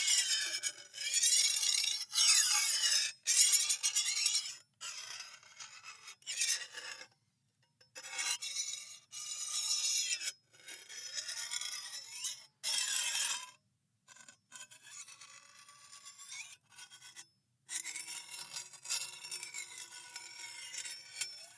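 Metal slowly scraped on metal in a series of separate strokes, each a second or two long with a wavering, squealing edge, parted by short pauses.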